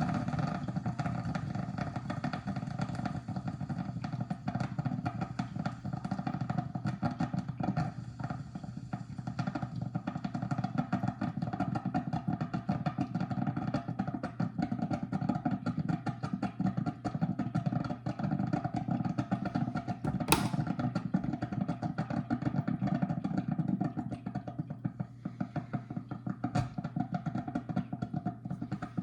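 Mr. Coffee drip coffee maker gurgling and sputtering as it heats water and pushes it through the brew basket, over a steady low hum, with one sharp click about two-thirds of the way through.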